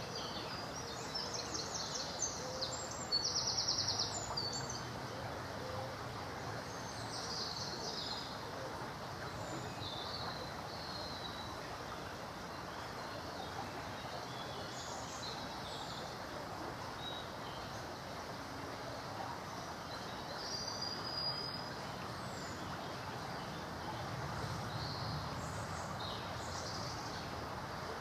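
Small songbirds singing and calling now and then over a steady background hiss. The loudest is a quick trilling song about three to four seconds in.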